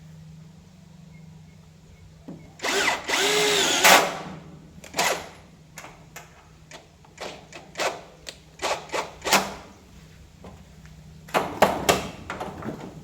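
Electric drill running for about a second and a half, its pitch rising and then falling, followed by a string of sharp clicks and knocks.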